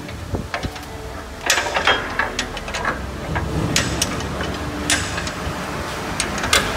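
A spanner clicking and rattling against metal as the bolts holding the spike teeth on a combine harvester's threshing drum are tightened: scattered sharp metallic clicks and ratchet-like rattles over a steady low hum.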